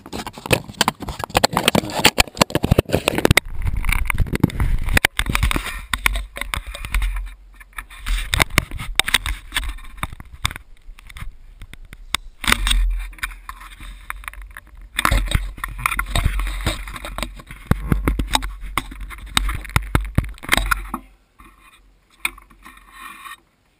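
Camera handling noise on an ATV's frame: dense clicking and rubbing as the mount is fastened, then irregular knocks and scrapes with bursts of low rumble, dying away to faint ticks near the end.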